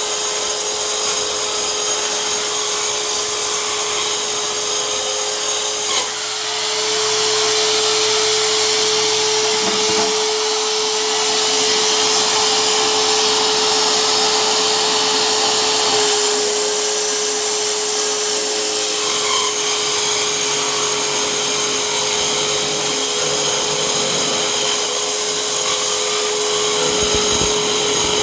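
Hyper Tough mini circular saw running continuously with a steady motor whine. The pitch rises slightly about six seconds in and drops back about ten seconds later.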